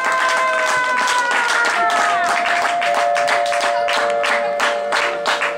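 Spectators clapping in a fast, steady rhythm, with long held musical notes sounding over the claps. The held notes fall slightly, then change pitch about two seconds in.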